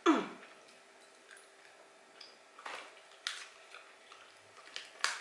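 A short vocal exclamation falling in pitch right at the start, then a few scattered crinkles and clicks of a plastic candy wrapper being handled.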